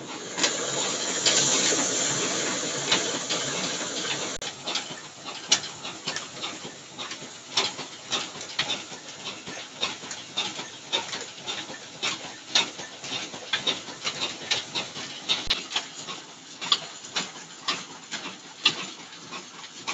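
Old Ruston Hornsby stationary engine running with belts driving a grain mill: sharp irregular clicks and knocks over a steady hiss. A louder rush of noise is heard for about the first four seconds.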